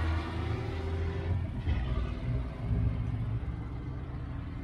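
Deep rumble of a big-rig diesel semi truck's engine under power on the drag strip. It is steady for about a second, then breaks up and slowly fades.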